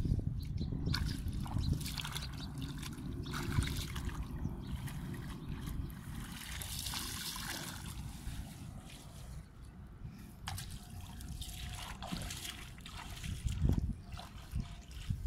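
Water trickling and splashing from a plastic pipe into a shallow pool in a flooded field, with irregular splashes as wet grass and mud are handled in the water.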